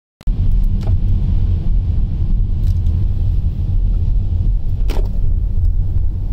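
Steady low rumble of a car driving on a wet road, heard from inside the cabin: engine and tyre noise, with a couple of faint clicks. It starts abruptly just after the beginning.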